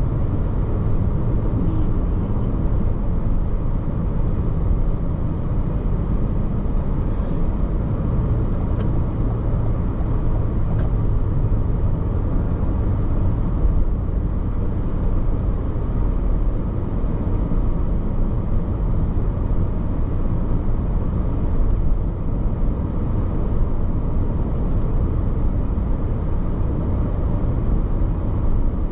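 Steady road noise of a car driving, heard from inside the cabin: a low, even rumble of tyres and engine with no change in pace.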